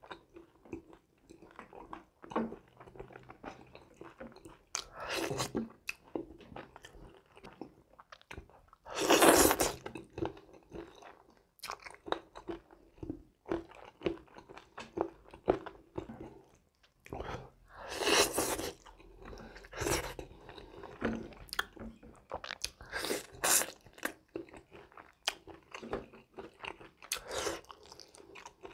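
Close-miked mouth sounds of a person eating grilled fish by hand, chewing and biting with many short crunches and smacks. Two longer, louder bursts come about a third of the way in and again past the middle.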